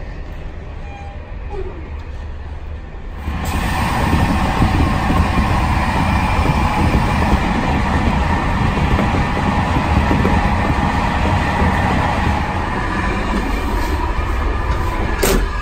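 SNCF Corail passenger coach running at speed, heard from inside: a steady rumble of wheels on track that gets suddenly much louder about three seconds in, at the front end of the coach coupled to the BB 26000 locomotive. A sharp click near the end.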